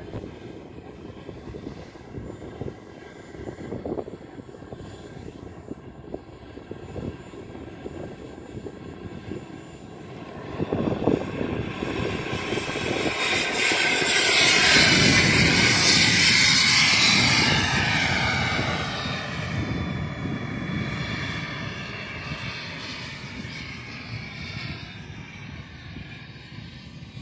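Radio-controlled model jet airplane's engine, running steadily at first. It grows much louder about a third of the way in as the model takes off and passes, with a high-pitched whine whose pitch bends as it goes by. It then fades steadily as the plane flies away.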